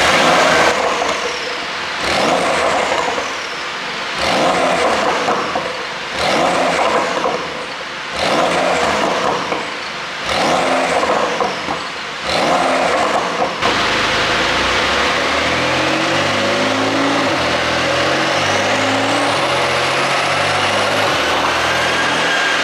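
Porsche 911 Carrera 4S (992) twin-turbo flat-six, exhaust flaps fully open, blipped up about six times roughly two seconds apart, with pops and crackles as each rev falls away under a pop-and-crackle ECU tune. A little past halfway the revving gives way abruptly to a steady, continuous sound.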